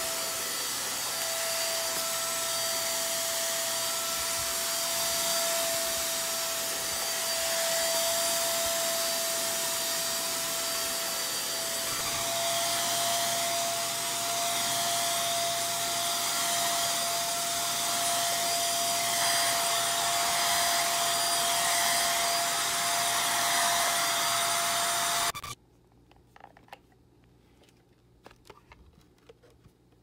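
APOSEN ST600 corded stick vacuum's 600-watt motor running steadily with a constant whine while vacuuming carpet. It stops abruptly about 25 seconds in, leaving only faint clicks.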